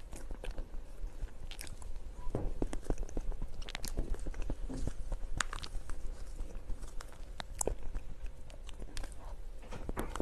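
Close-up eating sounds of a soft cream cake: wet chewing and mouth noises, with many short sharp clicks and scrapes of a metal spoon against the plastic box.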